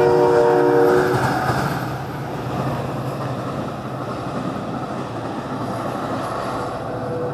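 Metra commuter train running past with a steady low rumble from its bilevel cars and diesel locomotive. A train horn chord of several notes sounds briefly at the start, then the rumble carries on a little quieter.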